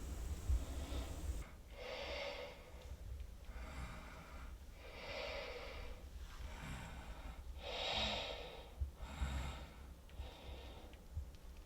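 A person breathing close to the microphone: a series of slow, audible breaths in and out.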